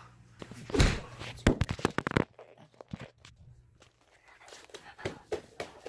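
Thumps, rustling and knocks from play-wrestling on a bed and the phone being jostled, with a short vocal grunt about a second in. The knocks come in quick clusters, then again near the end.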